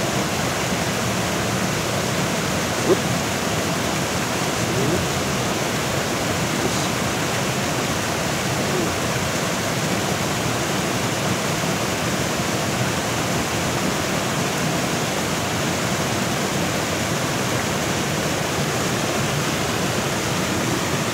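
Steady rush of water from a small waterfall pouring into a fast-flowing pool, with one brief tap about three seconds in.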